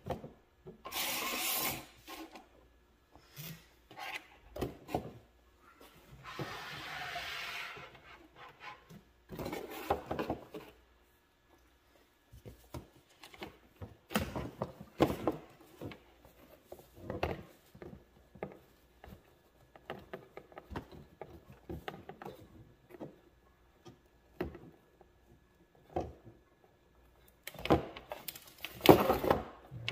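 Handling noises as a signboard splash shield and power cords are moved and fitted around a glass grinder: scattered rubs, scrapes and light knocks, with several brief scraping sounds and the loudest cluster near the end.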